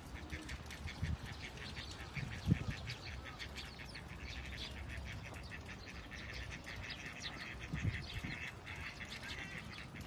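A flock of sparrows chirping and chattering in quick, dense twitters, with a couple of brief low thumps, about two and a half seconds in and again near eight seconds.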